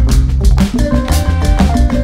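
Background music with drums and percussion over a steady beat.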